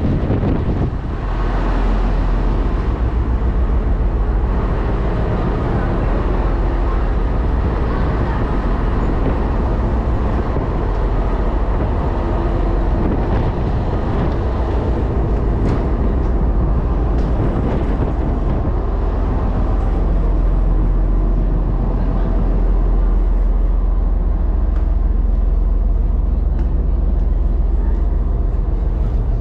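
Steady, loud low engine rumble with a haze of noise above it, unbroken for the whole stretch, with faint voices mixed in.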